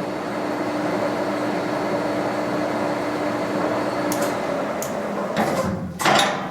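1986 Victor 1860E gearhead lathe running at its lowest spindle speed, 20 RPM: a steady gearbox whir with a constant hum. The hum stops a little past four seconds in, and a few sharp clunks follow near the end.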